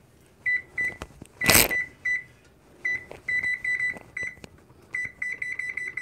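Electric range's control panel beeping with each key press as the oven timer is set. The beeps are short and high-pitched: a few single ones, then quick runs of beeps as the time steps up. There is one loud knock about a second and a half in.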